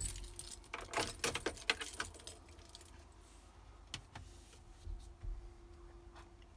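A bunch of keys jangling and rattling for about two seconds, then a single sharp click about four seconds in from the power button of a dashboard rear-view camera monitor being pressed. A faint steady hum follows.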